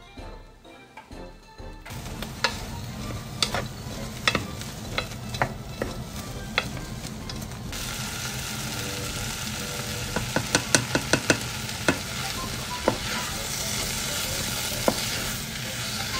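Onions and bacon frying in butter in a saucepan, sizzling steadily from about two seconds in, while a wooden spatula taps and scrapes against the pan as they are stirred, with a quick run of taps about ten seconds in.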